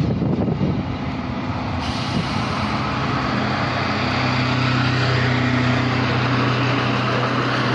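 Diesel passenger train running alongside the platform: wheel and rail noise with the diesel engine's drone, which settles into a steady low hum from about three seconds in.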